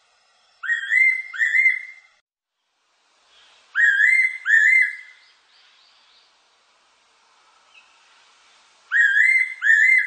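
Fairy pitta singing: three double-note phrases of rising whistles, about a second in, around four seconds in, and again near the end.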